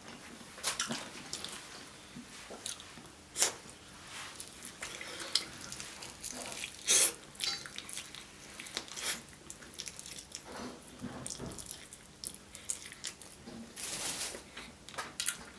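Close-miked wet eating sounds: sticky, sauce-coated Korean fried chicken pulled apart by hand, bitten and chewed with lip smacks, in irregular sharp smacks and clicks, loudest about three and a half and seven seconds in.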